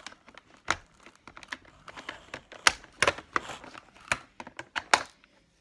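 Scissors snipping and hard plastic toy packaging being handled: a scattered series of about ten sharp clicks.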